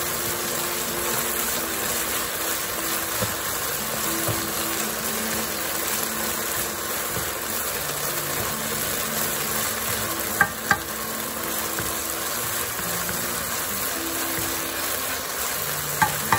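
Beef strips sizzling in hot oil in a non-stick wok as a wooden spatula stirs them, with two quick knocks about ten seconds in.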